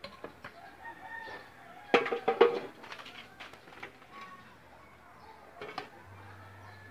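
Chickens clucking and a rooster crowing, in short calls with the loudest burst about two seconds in.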